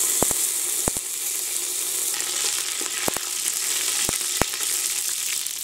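Fresh curry leaves and dried red chillies sizzling loudly in hot oil with mustard seeds in a pressure cooker, stirred with a ladle, with a handful of sharp clicks scattered through the steady sizzle.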